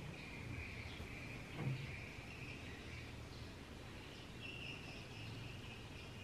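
Faint, steady, high-pitched chirring of insects in the background, over a low hum, with one soft knock about 1.7 seconds in.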